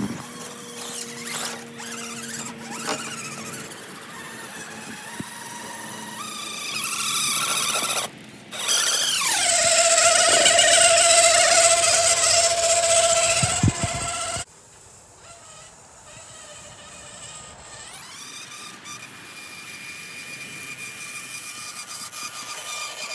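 Whine of an RC rock crawler's electric motor and geartrain, rising and falling in pitch with the throttle: a long falling sweep, then a loud steady whine that cuts off abruptly about halfway through, and a rising whine again in the second half.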